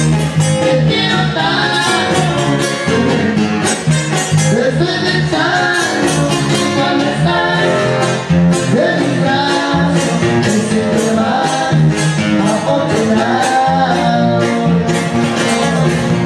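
A live band playing with a steady drum beat, guitar and a sung vocal line.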